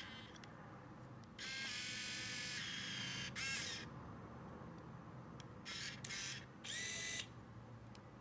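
Olympus Superzoom 76s compact camera's zoom motor whining for about two seconds in a few stages as the lens retracts. About six seconds in come a short motor buzz, a sharp shutter click and a brief whir of the motorised film advance winding on to the next frame.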